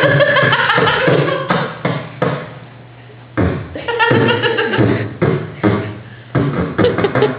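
A man making vocal sound effects into a microphone, beatbox-style mouth noises and sung tones, in several separate bursts with a short pause about three seconds in.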